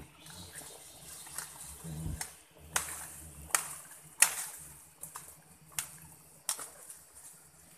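A series of sharp crackles and knocks, roughly one a second and the loudest a little past four seconds in, from a person moving about in dry leaf litter and twigs on the forest floor. There is a low thump about two seconds in.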